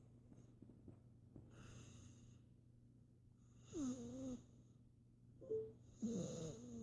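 A sleeping toddler with reactive airway disease breathing noisily, three raspy breaths about two seconds apart. From the middle on, the breaths carry a wheezy, snore-like tone that slides in pitch.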